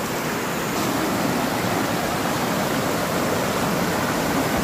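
White water of river rapids rushing steadily over rocks, a strong, even flow of noise.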